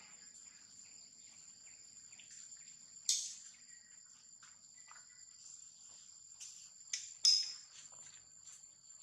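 Steady high-pitched insect drone in two close pitches, with a few sharp sudden sounds over it: one about three seconds in, and the loudest pair around seven seconds in.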